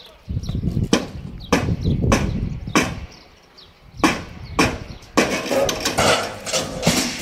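Hammer blows knocking on timber formwork under a concrete slab: a series of sharp wooden knocks at irregular intervals, roughly one a second, as the formwork is being stripped.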